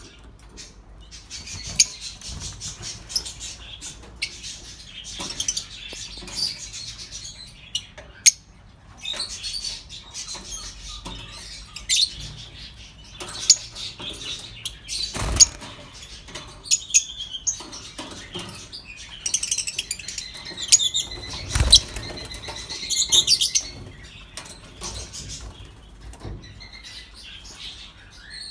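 Masked lovebirds chirping in quick, high twitters, with wing flutters. Two dull knocks come about 15 and 22 seconds in.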